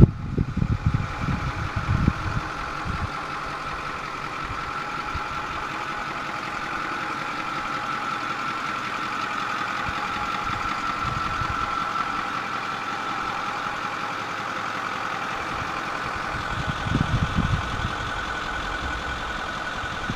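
Ford F-350 Super Duty pickup's engine idling steadily. Wind buffets the microphone at the start and again a few seconds before the end.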